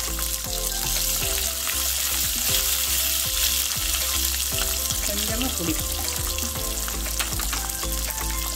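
Whole shallots, garlic and dried red chillies frying in hot oil in a kadai, a steady sizzle with frequent small crackles.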